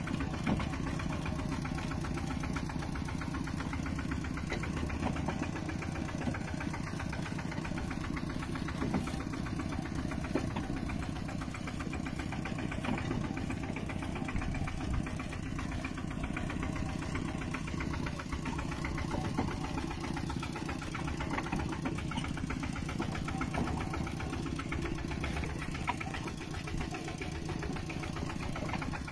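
Mini tractor engine running steadily in a fast, even pulsing rhythm, with no change in speed or load.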